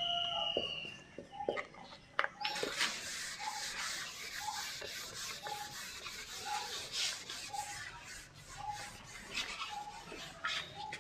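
A whiteboard eraser wiping marker writing off a whiteboard in quick repeated rubbing strokes, starting about two seconds in. Faint short peeps recur about once a second in the background.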